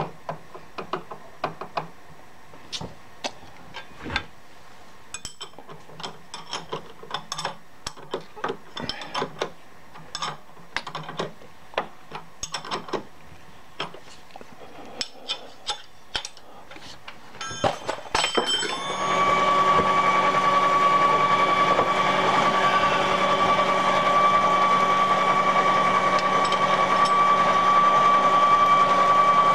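Scattered metal clicks and taps while a roughing end mill is fitted in a vertical milling machine's spindle. A little past halfway the spindle motor starts and runs steadily with a whine.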